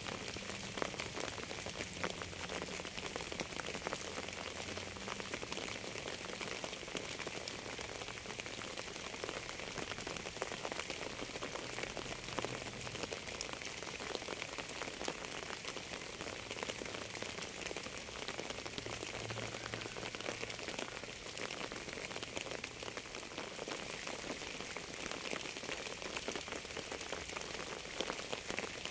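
Steady rain falling on a surface: an even hiss with many individual drops ticking through it.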